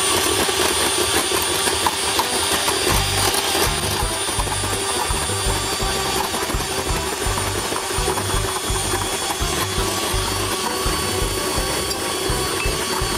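Electric hand mixer running steadily, its twin beaters whipping egg whites and sugar in a glass bowl into meringue.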